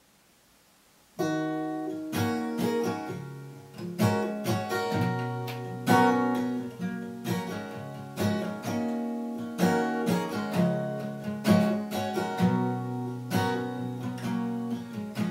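Solo acoustic guitar, capoed on the neck, playing chords as a song's instrumental intro. It starts about a second in, after near silence.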